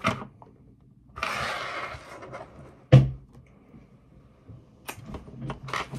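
Hands handling small accessories close to the microphone: a rustle about a second in, a sharp thump near the middle that is the loudest sound, and a few light clicks near the end.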